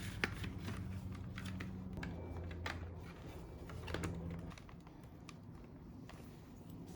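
A run of light, irregular clicks and taps from small hard objects, over a low hum that stops about two thirds of the way through.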